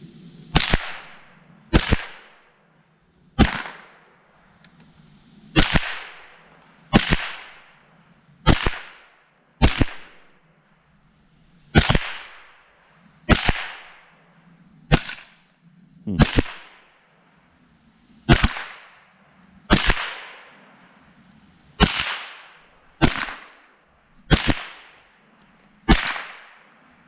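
AR-15 with a CMMG .22LR conversion kit firing rimfire rounds in slow, aimed semi-automatic fire: about seventeen sharp shots, one to two seconds apart, each with a short echoing tail.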